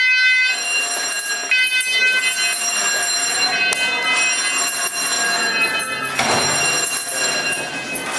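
Building fire alarm sounding continuously, a high, steady electronic tone with overtones, with a wash of rushing noise rising under it about six seconds in.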